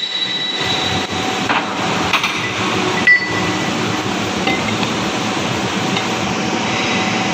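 Metal tools striking and clinking against steel machine parts a few times, one strike about three seconds in ringing briefly, over a steady workshop hum.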